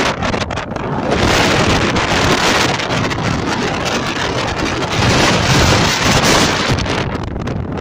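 Strong gusting wind buffeting the phone's microphone: a loud, rumbling, ragged noise, with a brighter hiss from about a second in until near the end.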